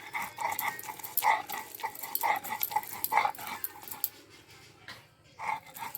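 A dog barking repeatedly in short, quick yaps.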